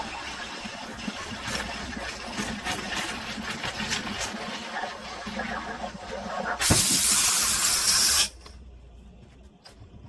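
Espresso machine sputtering and hissing, then a loud burst of steam about seven seconds in that lasts a second and a half and cuts off suddenly.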